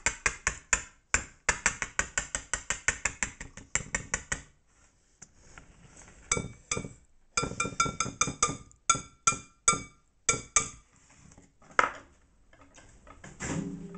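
Wire balloon whisk beating softened butter and brown sugar in a glass mixing bowl, its wires clicking rapidly against the glass at about four to five strokes a second. After a short pause, a slower series of sharp clinks follows, each leaving a ringing glass tone, as the dough-clogged whisk is knocked against the bowl.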